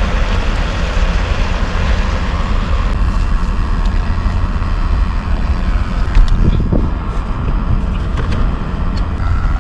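Wind buffeting the microphone: a loud, steady low rumble, with a few faint knocks near the middle.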